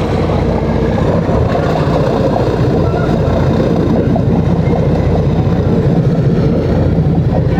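Engines of a Canados Gladiator open motorboat running steadily as it pulls away from the dock, with the propellers churning water at the stern.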